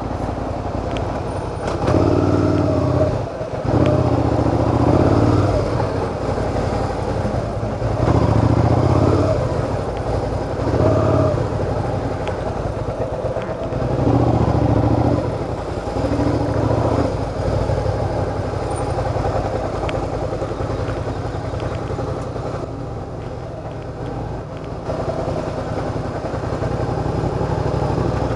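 Suzuki SV650's V-twin engine at low speed, heard from the rider's seat. The throttle is opened and closed in about six swells of engine sound over the first half, with a steady rumble between and after them.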